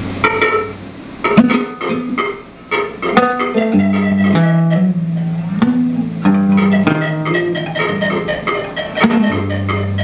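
Band playing a song live, with quick plucked guitar notes and sharp hits over a stepping bass line.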